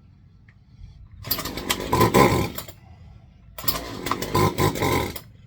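Craftsman 40cc two-stroke chainsaw engine firing in two short bursts, each about a second and a half long, with a quiet gap between. The saw starts but bogs down and won't keep running; its carburetor air and throttle need adjusting.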